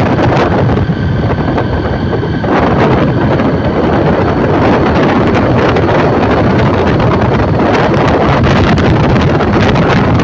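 Loud, steady wind buffeting the microphone, with a slight lull and faint tones showing through about a second in.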